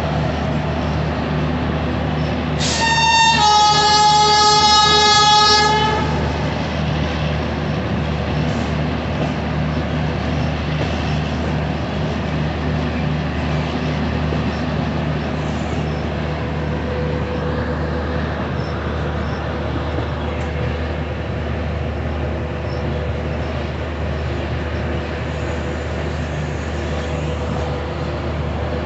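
Freight train of covered goods wagons rolling past with a steady rumble. A train horn sounds one blast of about three seconds, a few seconds in.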